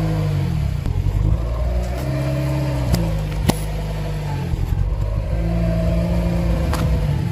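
Car engine running at low speed as the car creeps over objects, its low hum shifting in pitch a few times. A few sharp cracks break through, two about three seconds in and one near the end.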